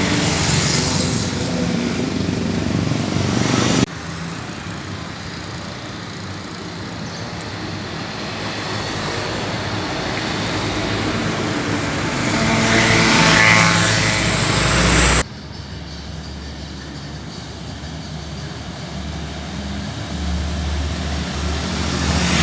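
Road traffic passing close by: vehicle engines and tyres, swelling as vehicles go past, loudest about thirteen seconds in. The sound cuts off sharply twice, where clips are joined.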